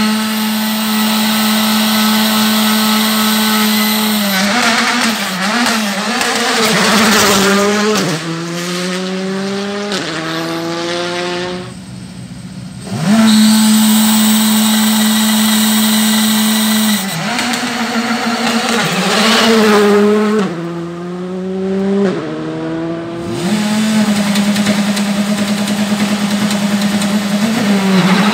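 Rally car engines at full throttle: a high, steady engine note, then runs of rising revs cut by quick gear changes. After a short lull about halfway through, a second run of the same kind begins.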